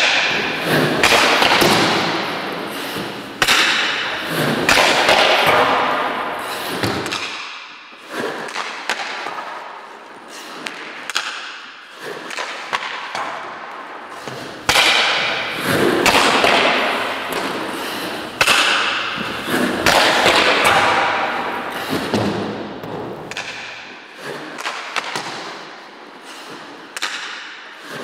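Ice hockey goalie at work: pucks knocking off the goalie's stick and pads, and skate blades scraping and spraying the ice as he pushes across the crease and stops. Repeated sharp knocks a few seconds apart, each trailed by a long hiss.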